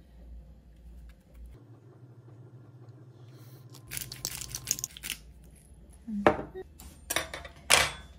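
Quiet tabletop food-prep handling: a short stretch of rapid crackling about four seconds in, then several sharp knocks and clinks as things are set down on a wooden table.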